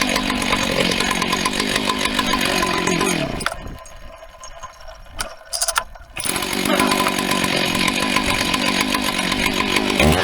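Husqvarna 2100CD two-stroke chainsaw, fitted with a 395 carburettor, running steadily, then winding down and going quiet about three seconds in. A few sharp knocks follow, and from about six seconds it runs again, starting to rev up and down right at the end.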